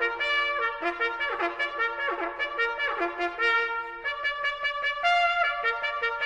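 Trumpet-led brass music playing brisk, quick-note figures that repeat in short phrases, as an intro theme.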